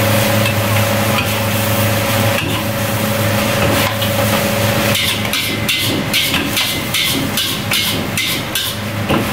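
Metal ladle and spatula clanking and scraping against a large steel wok while fried rice is stir-fried, over a steady kitchen hum. From about five seconds in the strikes come quicker and sharper, several a second.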